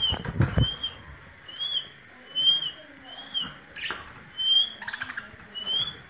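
Caged parakeets: a short rising-and-falling chirp repeated about every 0.8 seconds, eight times. In the first second, wings flap and brush the cage wire.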